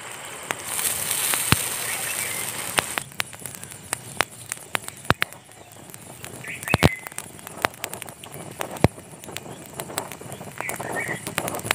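An open wood fire crackles and pops under a hot stone cooking slab, with sharp pops scattered irregularly throughout. Water on the slab sizzles with a steady hiss for the first few seconds.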